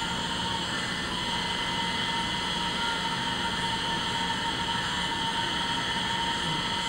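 Steady whirring of a workshop power tool cutting out a bass guitar headstock, with a few constant tones and no change in pitch, heard through the room's playback.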